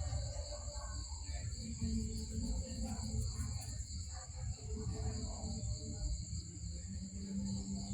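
Steady high-pitched insect chorus over a low rumble, with faint short pitched sounds about two seconds in and near the end.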